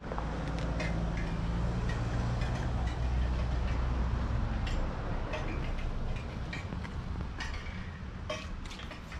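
Low hum of a vehicle engine that fades after about five seconds, with scattered light clicks over it.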